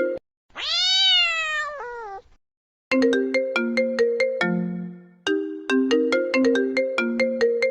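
A phone ringtone melody of short, plucked-sounding notes, cut off by a single long cat meow about half a second in that rises and then falls in pitch. After a brief pause the ringtone melody resumes about three seconds in and repeats its note pattern.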